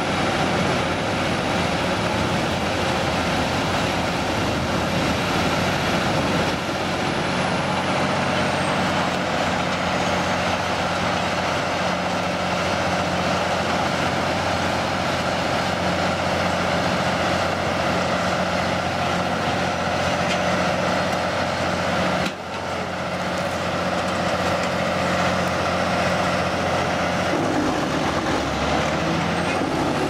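Large wood chipper running with its engine steady and loud, with a brief sudden dip in the sound about three-quarters of the way through.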